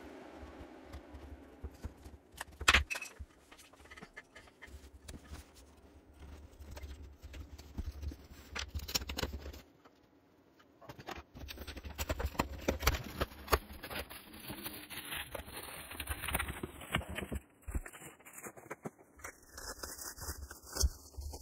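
Cardboard shipping box being handled and opened by hand: irregular scrapes, taps and rustles as the packing tape is peeled and cut, with one sharp click about three seconds in. Near the end, plastic wrap crinkles around the package inside.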